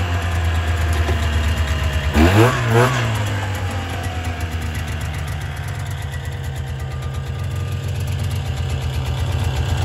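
1966 Ski-Doo Alpine snowmobile's 300 twin two-stroke engine idling steadily, with a brief rise and fall in revs about two seconds in.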